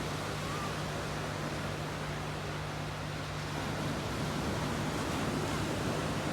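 Steady rushing noise with a constant low hum underneath and no distinct events.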